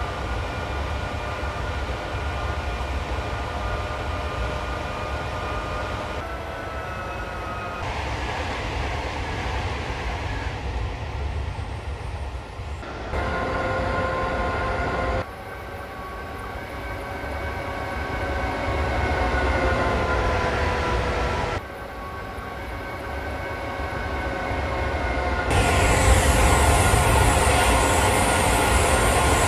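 Train running sounds: a steady rumble with a whine on several pitches. The sound switches abruptly to a new section every few seconds and gets louder and brighter near the end.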